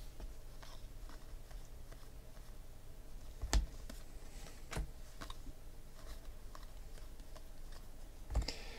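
Trading cards, Panini Contenders football cards, being shuffled and flipped through by hand: soft sliding of card stock with a few light clicks and taps, the sharpest about three and a half seconds in and another just under five seconds in.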